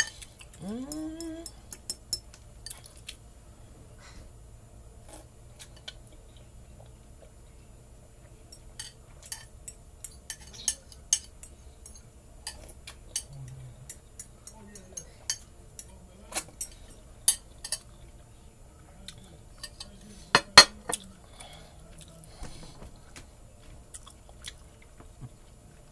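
Dishes and cutlery clinking and knocking at irregular intervals, with a cluster of louder clinks about two-thirds of the way through.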